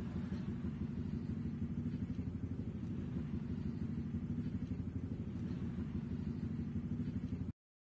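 Small motorcycle engine running close by, a steady low rumble that cuts off suddenly near the end.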